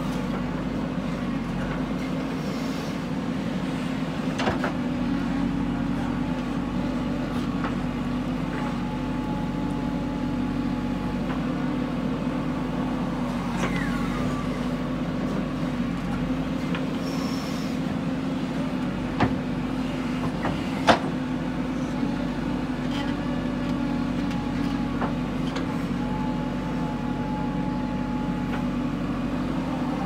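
JCB 3DX backhoe loader's diesel engine running steadily while it works its backhoe to load soil into a dump truck, with a few sharp metallic knocks, the loudest about two-thirds of the way through.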